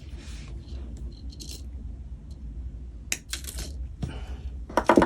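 Jewellery wire cutters snipping grey tiger tail beading wire and being handled: a few sharp clicks and light rattles, the loudest near the end.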